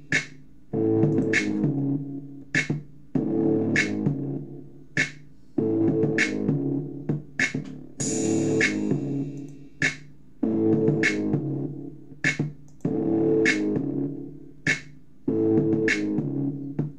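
Instrumental music: a repeating synthesizer-keyboard chord phrase that comes round about every two and a half seconds, with sharp drum-machine hits between the chords and no vocals.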